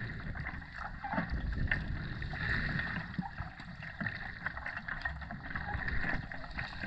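Underwater ambience: a steady muffled water rush with a low rumble and scattered faint clicks and crackles.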